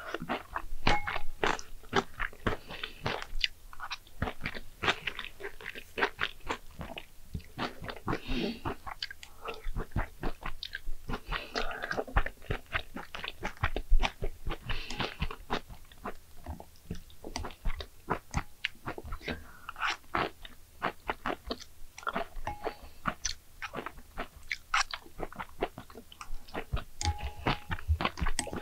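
Close-miked eating of egg jajangmyeon noodles: a dense, irregular run of small wet clicks and smacks of chewing and mouth sounds.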